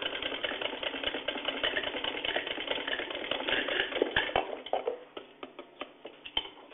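Hand-cranked sewing machine stitching through fabric: a fast, even rattle of needle and mechanism that stops about four seconds in, followed by a few scattered clicks.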